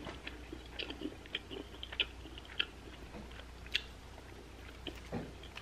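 A person chewing a mouthful of a pork bulgogi bowl, with soft, scattered wet mouth clicks.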